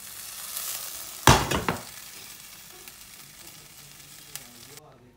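Sizzling of freshly stir-fried vegetables in hot oil, fading away, with one loud clatter about a second in. The sizzle cuts off suddenly near the end.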